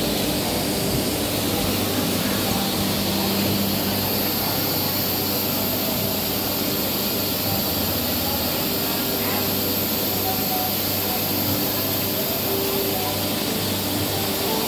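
Steady mechanical drone of a running machine, with a low, even hum.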